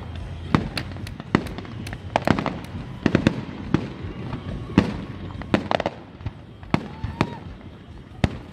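Aerial fireworks shells bursting in a display: sharp bangs and cracks in rapid, irregular succession, several a second.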